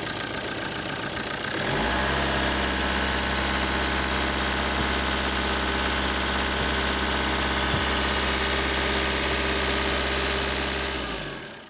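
Opel A20DTH 2.0-litre four-cylinder turbodiesel running at raised revs. The engine speed rises about a second and a half in and is then held steady.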